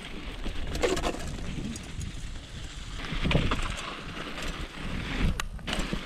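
Mountain bike rolling downhill over loose volcanic gravel and scree: a steady crunching rumble of the tyres, with a few sharp knocks and rattles from the bike.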